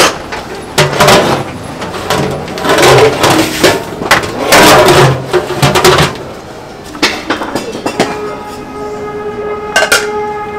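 Kitchen clatter of pots and bowls: sharp knocks and a stretch of scraping and rattling. Near the end a metallic ringing tone holds for about two seconds.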